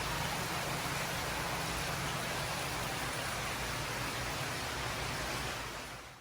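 Steady hiss-like noise with a low rumble under it, fading out and cutting to silence at the very end.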